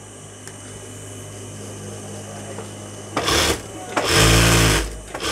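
Table-mounted industrial sewing machine: a steady motor hum, then two runs of stitching as a seam is sewn, a brief one about three seconds in and a longer one of about a second near the end.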